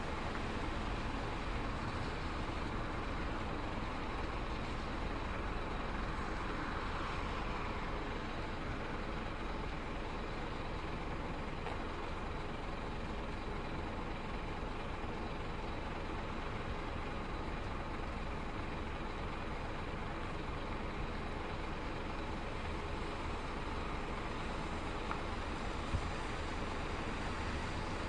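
Bus terminal ambience: a steady rumble of bus engines and traffic, with a swell of louder engine noise about seven seconds in and a single faint click near the end.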